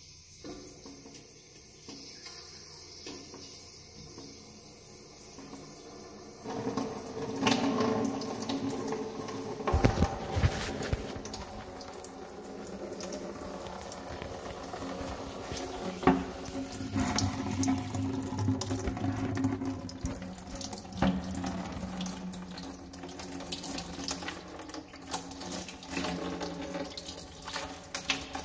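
Water running in a bathroom sink whose drain is clogged, with a few sharp knocks and clicks as hands work at the chrome P-trap beneath it. Near the end water starts to come out of the bottom of the trap into a plastic bucket.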